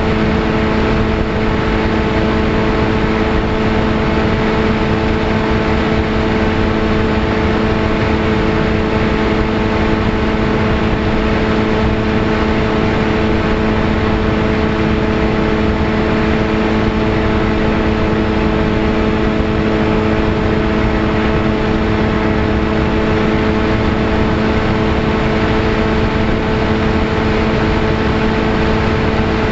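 Electric motor and propeller of a VAS Chimera FPV plane running at steady throttle, one unchanging buzzing pitch, with wind rushing over the onboard camera's microphone.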